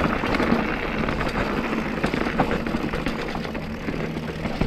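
Mountain bike riding noise: tyres rolling over dirt and rock with a steady rumble and a scatter of small clicks and rattles from the bike, plus wind on the microphone.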